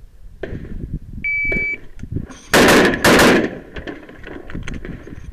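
An electronic shot timer gives one start beep, a steady high tone a little over a second in. About a second later two pistol shots follow, roughly half a second apart; these are the loudest sounds, and each rings on after it.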